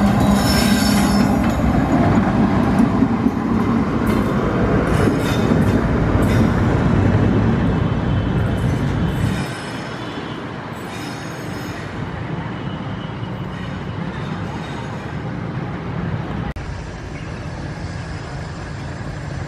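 A single diesel locomotive running light passes close by, its engine giving a steady low drone with brief high squeals from the wheels on the rails. About nine seconds in the sound cuts off abruptly to a quieter, steady distant rumble.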